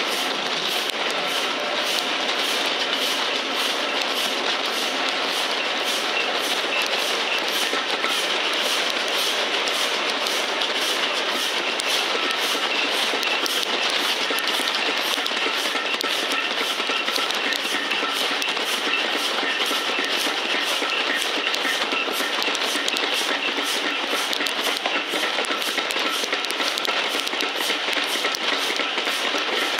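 Steam-hauled passenger train running along the line, heard from an open carriage window behind LMS Black Five 4-6-0 No. 45428: a steady rush of wheels on rail and wind, with an even, repeating beat.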